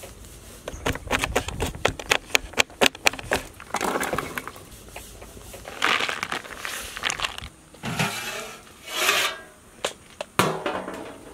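Knife chopping quickly on a wooden cutting board: a fast run of sharp strikes for the first few seconds. Then come several short bursts of scraping and pouring as chopped food is tipped into a bowl.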